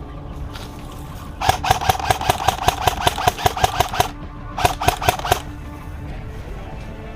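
Airsoft gun firing a rapid string of shots, about six or seven a second for nearly three seconds, then a shorter burst of about five shots, over background music.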